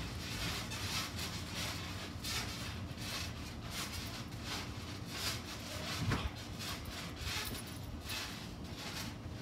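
A backyard trampoline's mat and springs creaking and rustling in short, irregular bursts as children shift and bounce on it. There is one dull thud about six seconds in.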